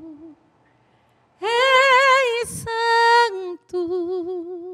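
A woman singing unaccompanied, a cappella, into a handheld microphone, holding long notes with a wide, even vibrato. After a gap of about a second she sings two more held phrases, and the last note slides down and fades near the end.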